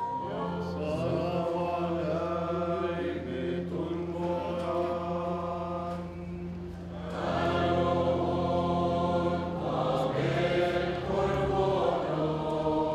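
Maronite liturgical chant: voices singing a slow hymn over a steady low held tone. It dips quieter about six seconds in and swells back a second later.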